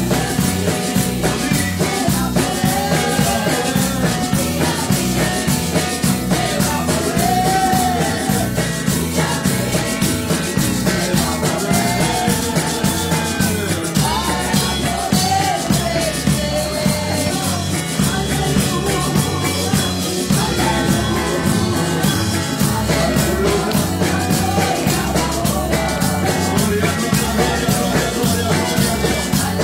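Live congregational praise music: a woman and a man singing into microphones over an electric bass guitar and a steady rhythmic beat, amplified through the church sound system.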